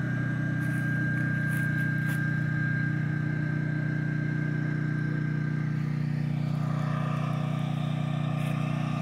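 Portable generator engine running steadily at constant speed, a continuous low hum with a thin high whine that fades out about six seconds in.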